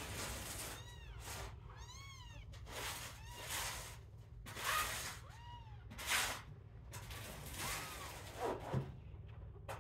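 Nursing kittens mewing, several short, thin, high mews that rise and fall in pitch, with short rustling noises between them.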